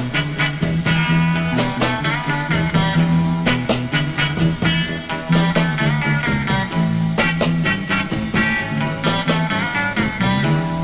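Early-1960s surf rock record playing: electric guitar over a repeating bass line and drums.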